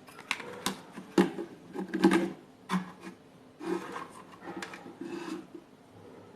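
Handling noise as cables and plugs are handled and pushed into connectors: an irregular run of sharp clicks and taps mixed with short rubbing scrapes.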